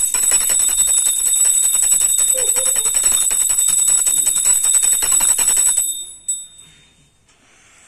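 A metal bell rung rapidly and without pause, ringing with a bright, steady high tone, for about six seconds, then stopping abruptly.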